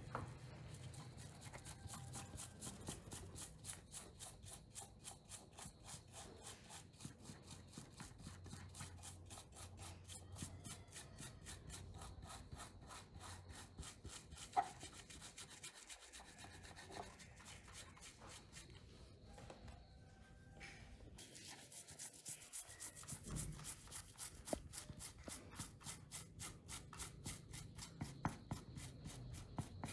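Faint, rapid rubbing strokes, evenly repeated about five times a second, with a short break about two-thirds of the way through and a single sharp click about halfway.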